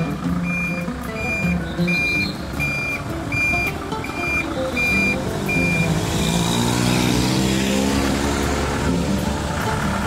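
Van's reversing alarm beeping at an even pace, about once every three-quarters of a second, over the running engine. The beeping stops about six seconds in, and the engine's pitch then rises and falls as the van drives off.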